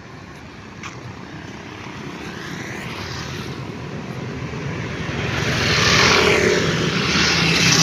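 Road traffic approaching and passing: engine and tyre noise builds gradually over several seconds and peaks as a motorcycle goes by close, about six seconds in.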